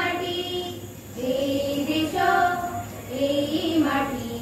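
A group of schoolchildren singing a song in Odia together, in phrases with held notes and short breaths between them.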